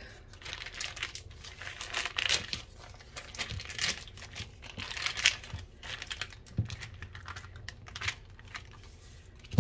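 Plastic wrap and parchment paper crinkling in short, irregular rustles as they are peeled open by hand.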